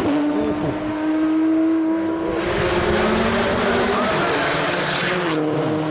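Hillclimb race car engine running hard at high, steady revs, its pitch dropping briefly a little over five seconds in.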